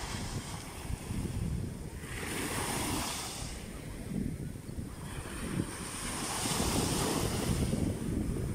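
Small sea waves breaking and washing up the beach, two foamy washes hissing in turn, the second one longer. Wind rumbles on the microphone.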